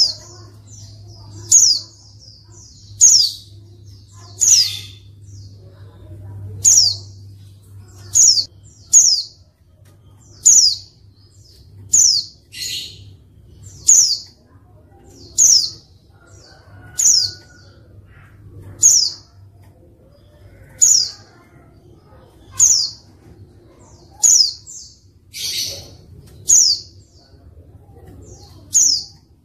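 Female white-eye (pleci) calling: short, high, downslurred chirps repeated about every second and a half, with a couple of harsher, buzzier notes among them. This is the female call used as a lure to make male pleci answer and sing.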